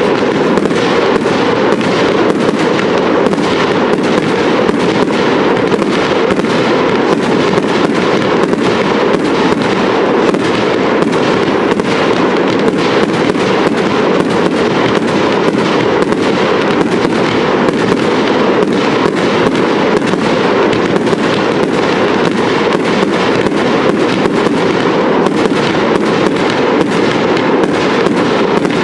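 Fireworks display going off without a break: a rapid, steady stream of bangs and pops from bursting aerial shells and spark fountains.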